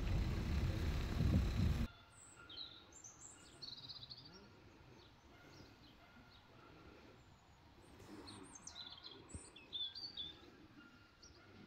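A loud low rumble cuts off suddenly about two seconds in. After it, small birds chirp in short scattered calls, busiest near the end.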